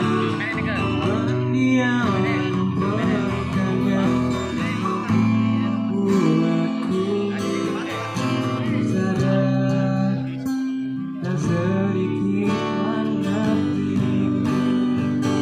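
Acoustic guitars strumming chords in a live pop ballad accompaniment, played through loudspeakers.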